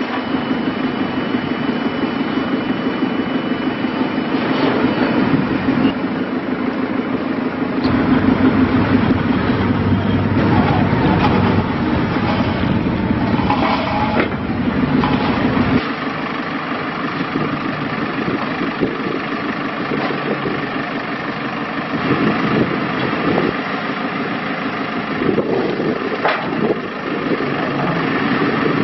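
Diesel engine of a 2012 JCB 3CX-14 backhoe loader running steadily. For several seconds in the middle it grows louder and deeper, as under load or revs, then settles back. A few sharp knocks sound over it.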